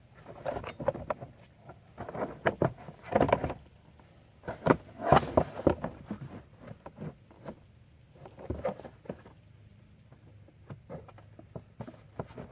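Plastic interior trim pieces being handled and fitted by hand: irregular clusters of clicks, knocks and rattles, separated by short quiet gaps.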